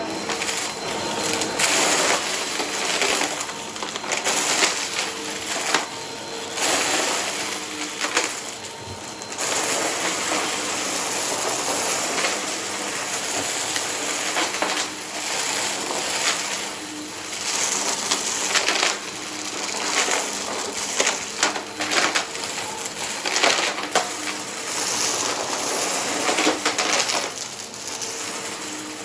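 Upright vacuum cleaner sucking up crunchy debris, a dense crackling and crunching over the hum of its motor. The crunching swells and eases as the vacuum is pushed back and forth over the mess.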